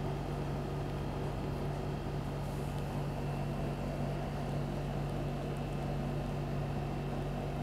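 Steady low hum over a faint even hiss, unchanging throughout, the background noise of the recording setup.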